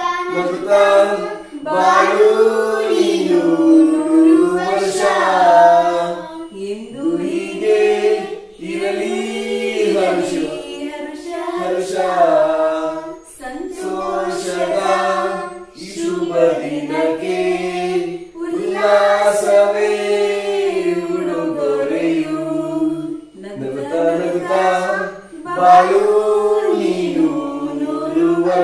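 A group of voices singing a birthday song together, phrase after phrase with short breaks, without instruments.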